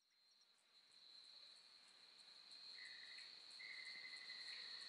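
Faint outdoor insect chorus fading in: a steady high trill, soft higher pulses about three times a second, and a second, lower steady tone joining in two stretches from about three seconds in.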